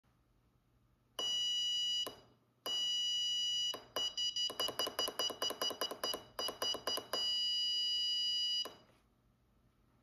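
A small Arduino-driven buzzer sounding a steady high-pitched beep each time a push button is pressed, silent when it is released. Two beeps of about a second each, then a fast run of short beeps at about four or five a second as the button is tapped quickly, then one long beep of about a second and a half.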